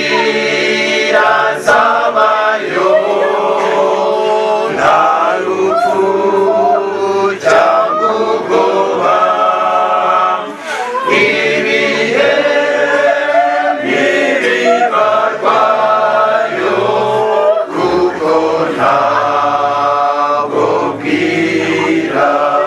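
Choir singing a cappella, several voices holding long notes together.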